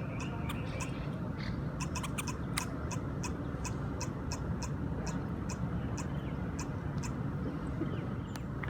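Brewer's blackbird giving short, sharp chack notes, repeated at an even pace of about three a second, over a steady low rumble of outdoor background noise.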